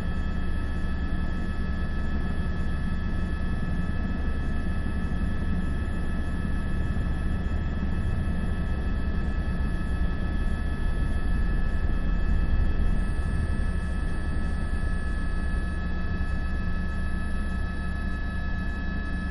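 Helicopter engine and rotor noise from the news helicopter: a steady low rumble with constant high-pitched whining tones over it, rising a little about twelve seconds in.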